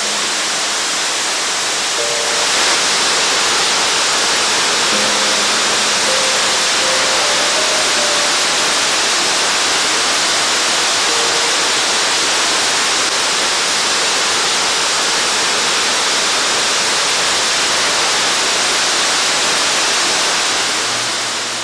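Waterfall: falling water rushing steadily and loudly, a little louder from about two seconds in and fading out near the end. A few faint sustained musical notes sound under it in the first half.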